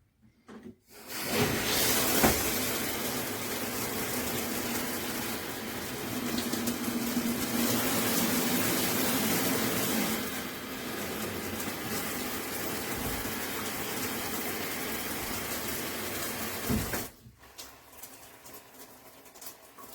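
Water spraying from a high-pressure shower head: a steady hiss that starts about a second in and cuts off sharply near the end.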